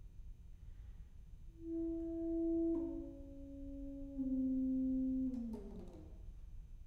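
Solo saxophone playing three long held notes, each a little lower than the last, after a quiet opening of about a second and a half. The third note is the loudest and ends in a downward slide that fades away.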